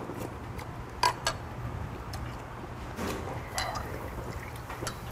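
Soju poured from a glass bottle into a small shot glass a few seconds in. Before it come a few sharp clicks, the loudest about a second in.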